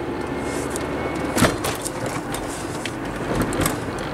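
Car running, heard from inside the cabin, with a steady low rumble and a few sharp clicks and knocks; the loudest click comes about a second and a half in.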